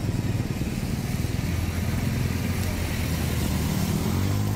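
Motorcycle engine running while riding through a flooded street, with water swishing against the wheels. The engine hum becomes steadier and stronger near the end.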